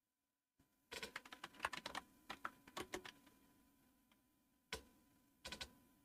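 Typing on a computer keyboard: a quick run of keystrokes lasting about two seconds, then a single key press and a short pair of strokes near the end.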